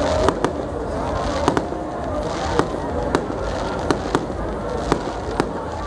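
Fireworks exploding overhead: about ten sharp bangs at irregular intervals, some in quick pairs, over the chatter of a crowd.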